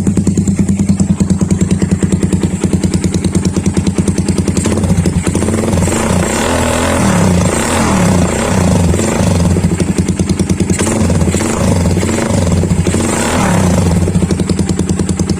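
Suzuki Raider 150 carburetted single-cylinder four-stroke engine running through a Daeng Sai 4 replica aftermarket exhaust. It idles steadily at first, is blipped up and down in several short revs through the middle, and settles back to idle near the end: a sound test of the new pipe.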